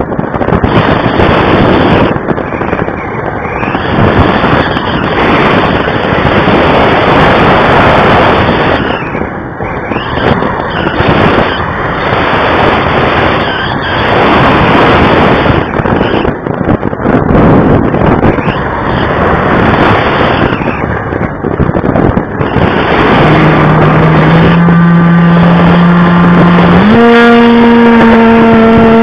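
Loud wind rush over the onboard camera microphone of a flying RC plane, swelling and dipping as the plane manoeuvres. In the last few seconds the plane's motor comes in as a steady hum that steps up in pitch.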